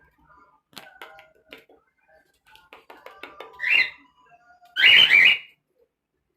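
Cockatiel making soft chattering sounds and small clicks, then two loud calls: a short one about four seconds in and a longer one with a wavering pitch just after.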